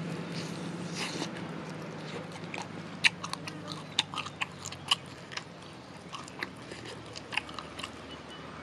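Close-up eating sounds of a person biting and chewing crispy sauce-coated fried chicken: a run of sharp crunches and wet mouth clicks, thickest about three to five seconds in.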